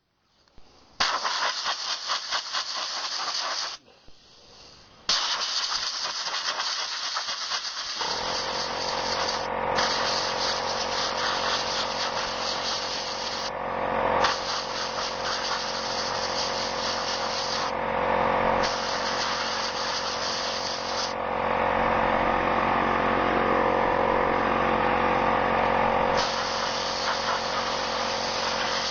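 Compressed air from a blow gun hissing in repeated bursts as a paper lawn-mower air filter is blown clean. About eight seconds in, an air compressor motor starts and runs steadily under the bursts.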